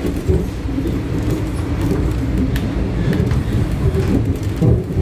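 Toronto Rocket subway train running at speed, heard from inside the car: a steady low rumble of wheels on rail and car-body noise, with faint clicks and rattles.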